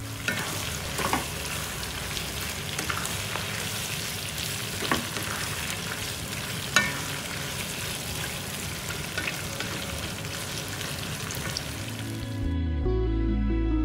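Beef in chili sambal sizzling and frying in a wok while a wooden spatula stirs it, with a few sharp knocks of the spatula on the pan, the loudest just past halfway. The sizzle stops about a second before the end, when background music comes back in.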